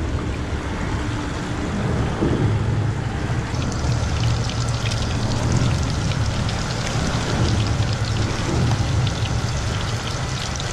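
Fish deep-frying in a pot of hot oil: a steady crackling sizzle that thickens about three and a half seconds in, over a low steady rumble.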